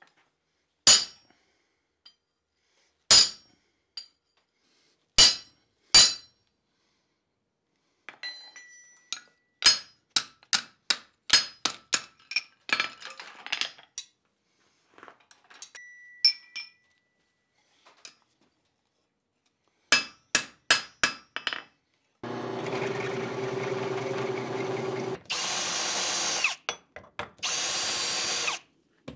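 A hand hammer striking a punch to put the pivot hole through a steel tong blank on the anvil: a few heavy, ringing blows about two seconds apart, then quicker, lighter strikes. About 22 seconds in, a power drill takes over, boring the punched hole out to size in the steel in three runs.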